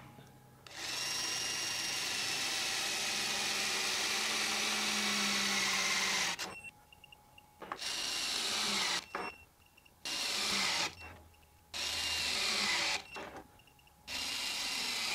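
Hytorc LION 18V battery torque wrench tightening large nuts: the motor whines and drops in pitch as it loads up. It makes one long run and then four short ones, with a short triple beep in each gap.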